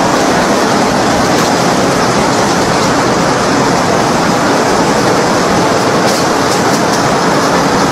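Nonwoven needle-punching line running: the fibre opener's rollers and spiked lattice feeder make a loud, steady machine noise.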